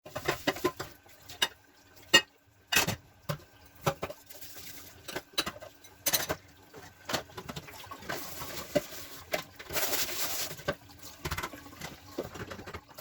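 Dishes and utensils clinking and knocking at a kitchen sink, with a spell of running water about two thirds of the way in. A faint steady hum runs underneath.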